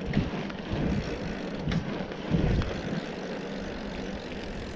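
Wind rushing and buffeting over an action camera's microphone as it moves over bumpy ground, with uneven low rumbles and a few short knocks.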